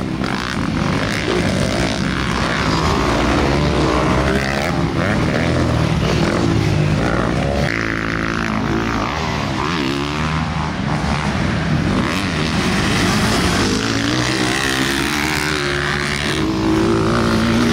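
Several motocross dirt bike engines revving on a track, their pitch rising and falling as the riders accelerate, shift and back off, overlapping one another.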